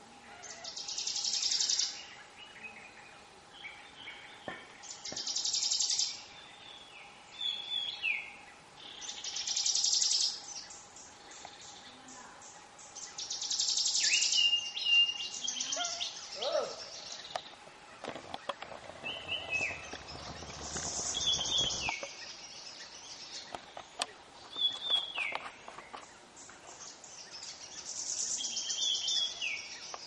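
Several forest birds calling: bursts of rapid high-pitched notes about every four seconds, interspersed with short whistled notes that drop in pitch.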